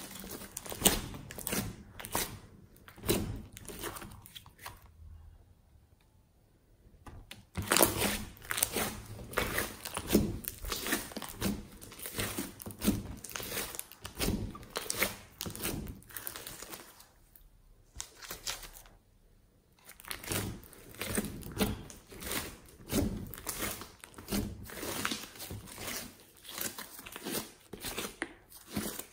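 Hands kneading and squeezing thick slime mixed with foam beads (floam): a dense run of small crackles and wet squishes. It falls quiet twice, for about two seconds each time.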